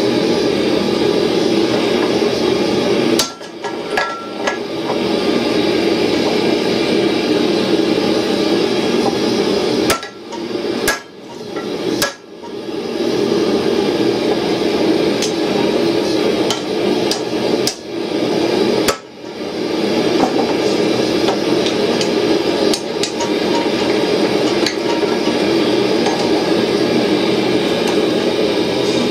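Blacksmith's hammer striking hot steel on an anvil, repeated blows on the tow-ball hardy swage, over a steady rushing noise. The sound breaks off briefly a few times.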